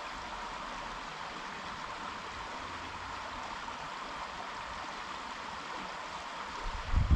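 Creek water running steadily in an even rushing hiss. A few dull low thumps come in near the end.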